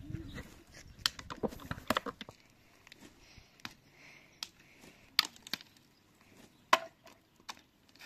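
A series of sharp, irregular knocks and clacks, about ten in all, with a low rumble under the first two seconds. The loudest knock comes near the end.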